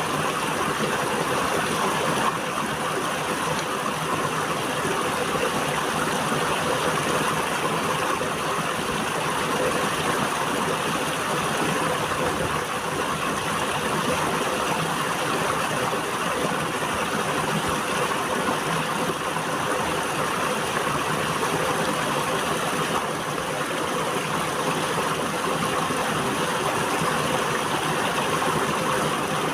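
River water flowing steadily, a continuous even wash of sound with no breaks.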